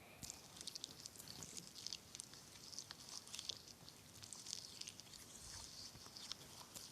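Slime being squeezed and poked by hand: faint, rapid sticky clicks and crackles.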